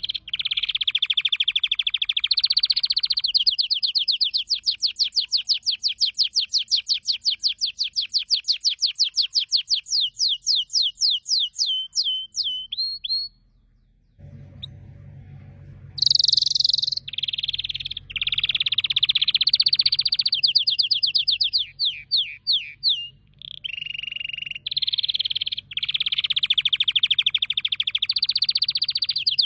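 Domestic canary singing its long rolling song: fast trills of repeated high notes. About halfway through, one trill slows into separate notes and the song pauses briefly, then further rolls and trills follow.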